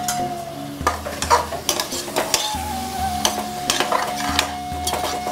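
Metal spoon stirring and scraping mutton masala with yogurt in an aluminium pressure cooker, the mixture sizzling in the hot oil, with irregular clinks against the pot. Soft background music with a steady pulse runs underneath.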